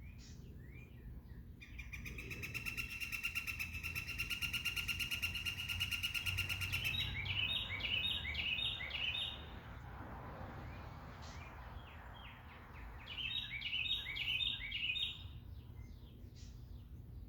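Songbirds singing: a rapid, buzzy trill held for about five seconds, followed by a quick series of repeated falling notes. The series comes again near the end, with scattered short chirps around it over a low steady background rumble.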